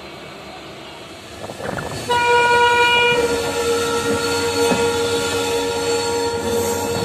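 Rolling noise of a passenger train on the track. About two seconds in, a locomotive horn starts and holds a loud, steady blast of several tones at once.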